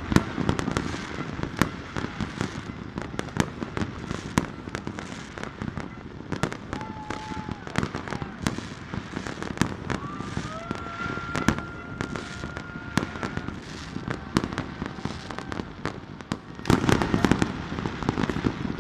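Many fireworks and firecrackers going off: a dense, irregular run of bangs and crackling pops, with a louder cluster of bursts near the end.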